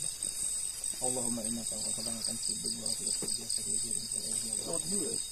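Crickets chirping in a steady high trill, with a man's voice reciting a prayer at a low murmur underneath.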